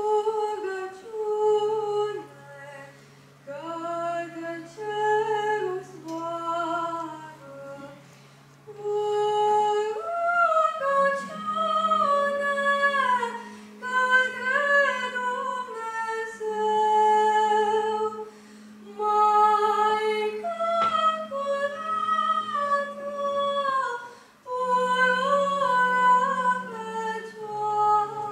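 A boy's unaccompanied voice singing a slow solo melody in phrases through a microphone. Under it runs a low held drone that moves to a new pitch a few times.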